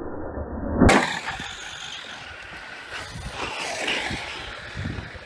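Radio-controlled trucks running on a dirt track, motor and tyre noise that swells and fades as they pass. A sharp, loud crack about a second in is the loudest sound.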